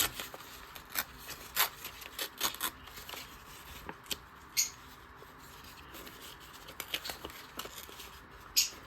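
A gel-print paper being torn by hand, in short irregular rips and rustles of paper.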